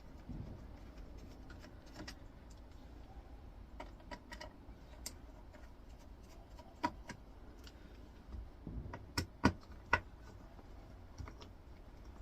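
Screwdriver working out small screws from a monitor's main-board metal plate: scattered light clicks and metallic taps, with a few sharper knocks about seven seconds in and again around nine to ten seconds in.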